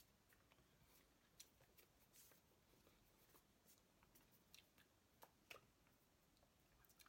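Near silence: faint room tone with a few scattered soft clicks.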